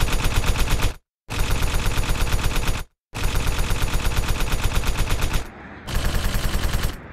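Machine-gun fire sound effect: a fast, even stream of shots, about ten a second, cut off by two short dead-silent gaps about one and three seconds in, with a brief lull near the end.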